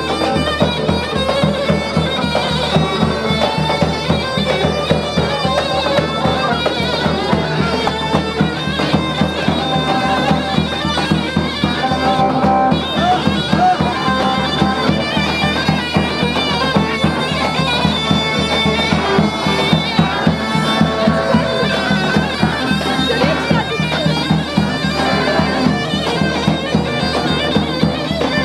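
Turkish folk music played on a loud, reedy wind instrument, its melody held and ornamented over a steady, driving drum beat.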